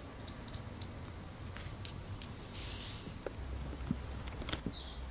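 Faint scratching and light clicks of a screwdriver tip stirring copper oxide and aluminium powder in a small foil tray. A faint low rumble joins about three seconds in.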